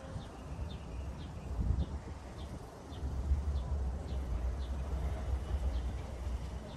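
Mercedes-AMG C43's twin-turbo V6 running at a low, steady rumble as the car reverses slowly into a parallel parking spot under its automatic park assist, growing louder about three seconds in as it comes closer. A bird chirps faintly and repeatedly, about twice a second.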